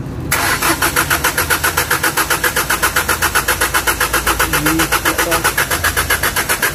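Hyundai Porter II's common-rail diesel engine cranking on the starter motor without catching, an even chug of about six or seven compression strokes a second. The fuel system was run empty and still holds air, so the cranking is being used to bleed the common rail.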